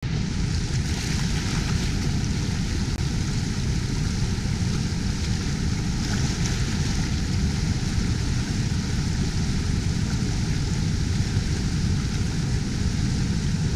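Steady rush of whitewater from a river rapid and waterfall, a dense unbroken noise strongest in the low end.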